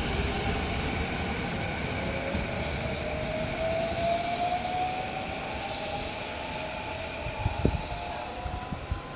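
Sanyo Electric Railway train pulling away, its electric traction motors whining in a smooth rising pitch as it accelerates over a low running rumble, with a few wheel knocks near the end.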